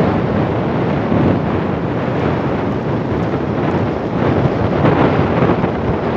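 Wind buffeting the microphone of a phone carried on a moving motorcycle, a loud steady rush of noise that covers the bike's running.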